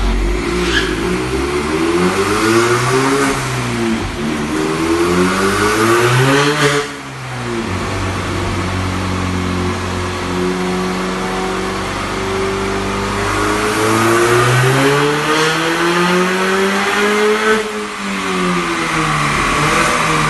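Turbocharged 1.6 EcoBoost four-cylinder of a Ford Fiesta ST180 with a stainless tubular exhaust manifold, revving hard on a rolling road. Its pitch climbs and falls several times, holds steady for a few seconds midway, and drops off sharply twice when the throttle is shut.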